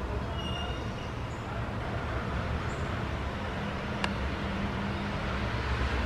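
Steady low rumbling background noise, with a faint short high tone about half a second in and a single sharp click about four seconds in.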